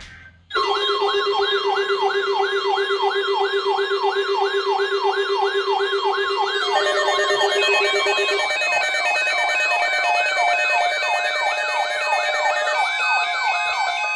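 Electronic siren yelping rapidly, about three rising-and-falling sweeps a second, over steady tones; it starts abruptly. About seven seconds in, a second layer of steady and stepping tones joins it.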